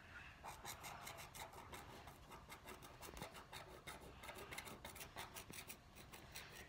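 Wooden stylus scratching across scratch-art paper, scraping off the black coating in quick back-and-forth strokes. The scraping is faint.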